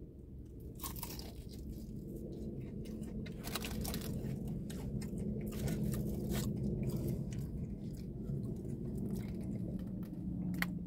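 Close-up biting and chewing of crunchy fried food, with many short crisp crackles scattered through it over a low steady hum.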